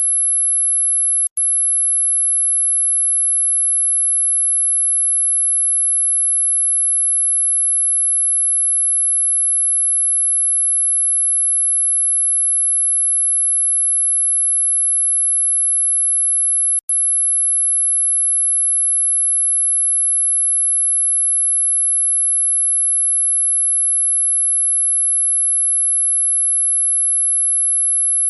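Dog whistle sound effect: a steady, high-pitched pure tone at about 11,200 Hz, pitched for dogs but still audible to people. It cuts out for an instant with a click about a second in, and again about 17 seconds in.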